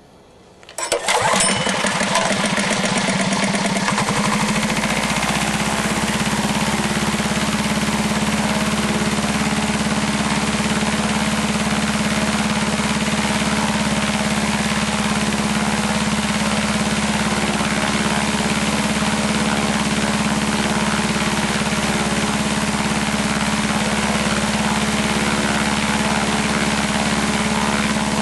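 Harbor Freight 212cc Predator single-cylinder four-stroke engine driving a direct-drive wooden paramotor propeller: it starts and catches about a second in, picks up speed over the next few seconds, then runs steadily at an even pitch with the propeller turning.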